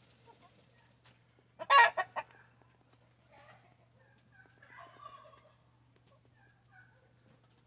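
Silver Laced Wyandotte chickens calling: a loud, brief run of three squawks about two seconds in, then softer clucks twice later on.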